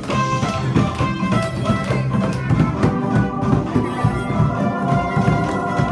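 Music from a makeshift band: several held pitched notes over a steady low beat.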